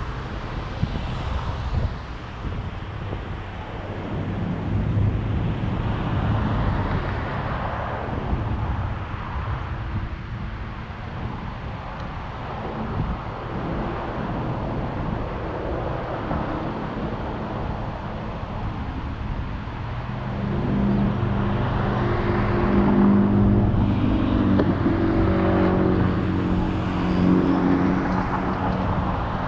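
Car engine running with road noise; the engine note grows louder and more prominent about two-thirds of the way in.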